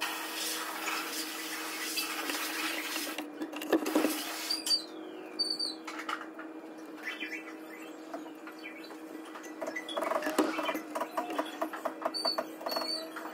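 Enamelled copper magnet wire rustling, scraping and clicking irregularly as hands work loose coils of it into an electric motor's stator during rewinding, over a steady low hum.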